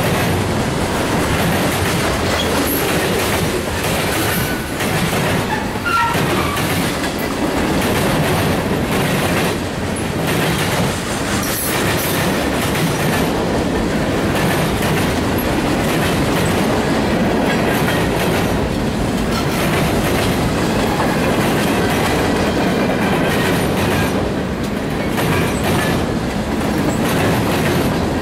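Freight cars of a mixed freight train rolling past at speed: the steady rumble and clatter of steel wheels on the rails. The passing cars include covered hoppers, tank cars, boxcars and centerbeam flatcars.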